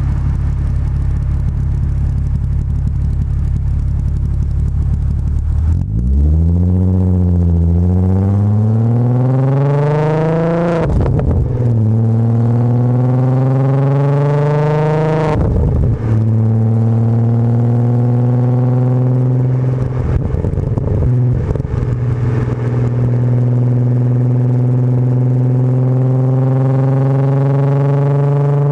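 Volkswagen VR6 engine's exhaust, miked close at the tailpipe, running steadily. About six seconds in it accelerates hard, with the pitch dropping at two upshifts about eleven and fifteen seconds in, then settles into cruising at slowly rising revs.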